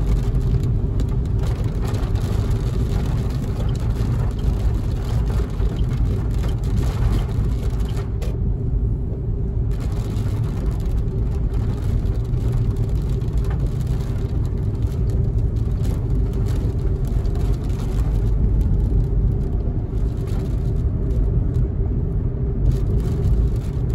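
Car cabin noise while driving on a wet road: a steady low rumble of engine and tyres with a constant hum and a rushing hiss from the tyres on wet pavement.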